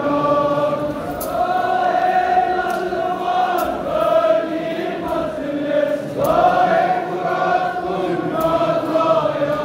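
A large crowd of men chanting a Kashmiri nouha, a Muharram mourning lament, together in long held phrases. Short sharp slaps come through about once a second, the chest-beating (matam) that goes with it.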